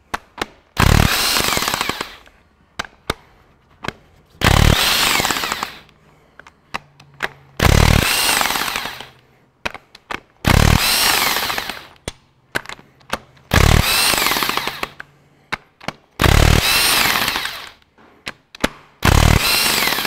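Makita BTW450 18V cordless impact wrench hammering loose the cylinder head bolts of a Ferguson 23C diesel engine: seven bursts of about a second each, roughly three seconds apart, with light metal clicks between them.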